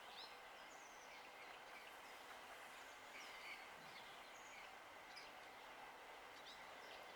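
Near-silent outdoor quiet with a few faint, brief bird chirps scattered through it.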